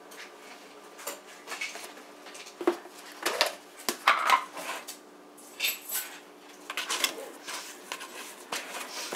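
Scattered light knocks and clatter of plastic kitchenware being handled on a wooden counter: a plastic food container moved aside and a plastic mixing bowl of dough handled.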